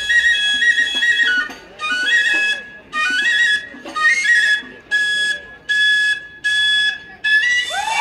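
Background music: a flute playing a slow melody in short phrases of about a second each, stepping between notes, with brief pauses between the phrases.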